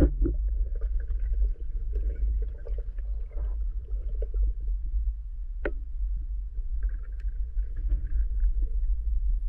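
Dull underwater rumble of water moving past a camera on a speargun as a freediver swims, with one sharp click a little past halfway.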